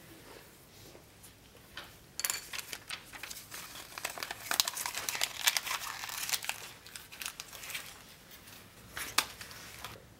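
A sheet of paper being handled, folded and crumpled in the hands, crackling densely for several seconds from about two seconds in, with one more sharp crackle near the end.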